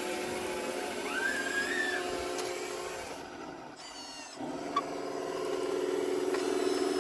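Radio-controlled construction model's motors running with a steady hum, cutting out briefly about four seconds in and starting again louder. A short rising squeal sounds about a second in.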